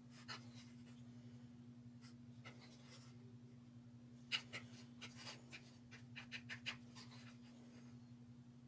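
Wooden craft stick stirring acrylic paint in a small plastic cup: faint scrapes and taps of the stick against the cup, several close together between about four and seven seconds in, over a low steady hum.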